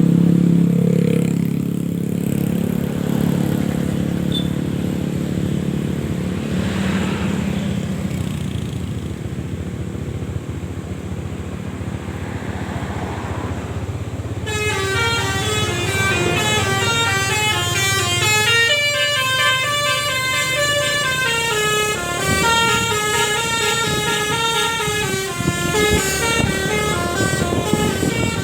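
A low, steady vehicle drone fades down over the first half. About halfway through, a Basuri telolet bus horn, a multi-tone musical air horn, starts playing a fast melody of stepping notes that carries on to the end.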